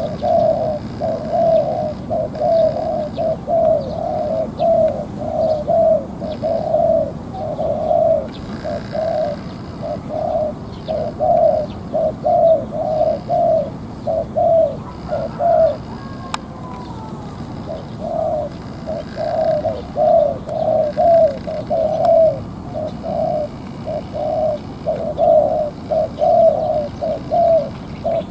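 Male spotted dove, a bird being readied as a decoy, cooing in a long run of short, low coos with a brief pause about halfway through. Faint chirps of other small birds sit behind it.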